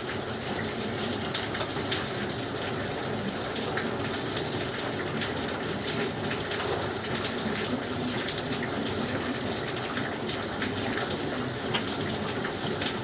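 Steady water noise, a continuous rush with scattered small drips and ticks.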